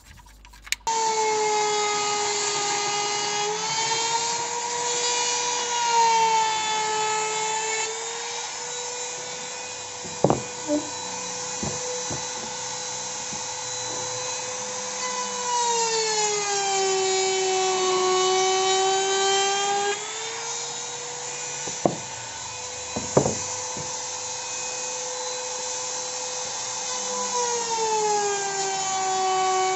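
Handheld trimmer router flush-trimming the edge of HPL laminate on a blockboard door panel: a steady high motor whine that starts about a second in and sags in pitch a few times as the bit bites into the cut. A few sharp knocks come through in the middle.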